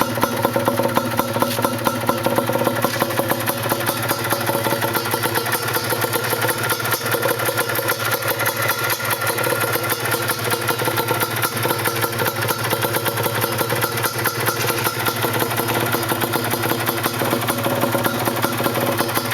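Yamaha DT 125's single-cylinder two-stroke engine idling steadily, its firing pulses even with no revving.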